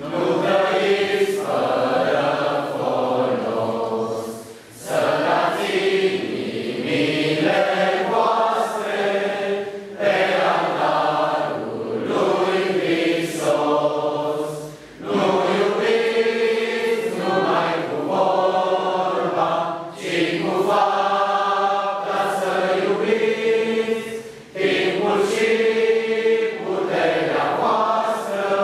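Church congregation singing a hymn together, many voices in unison on long held notes. The phrases break briefly about every five seconds.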